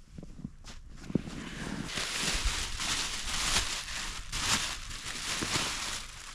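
Fabric rustling and crinkling as a gear bag is handled and opened. A few soft knocks come in the first second or so, then steady rustling from about two seconds in.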